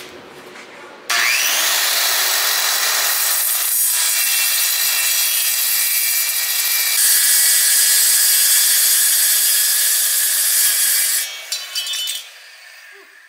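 Porter-Cable circular saw starting about a second in and cutting straight through thin aluminium sheet: a loud, high-pitched steady cutting noise that stops near the end.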